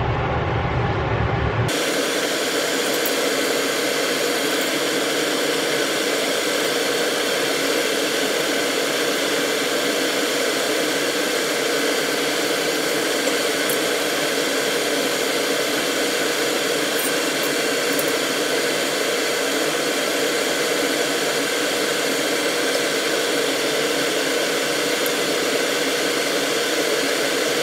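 Range hood exhaust fan running with the gas burner lit under a wok: a steady whooshing hiss with a constant hum. A deeper rumble cuts off abruptly in the first couple of seconds.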